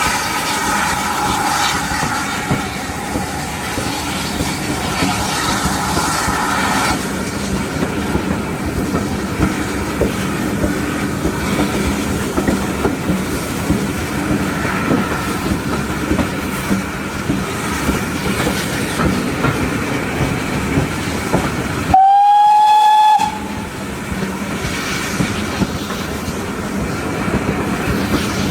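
Steam train under way behind GWR-style 2-6-0 locomotive No. 9351, with a steady rumble and wheel clatter on the rails and a thin squeal over the first several seconds. A single locomotive whistle blast of about a second, rising slightly in pitch, sounds near the end and is the loudest sound.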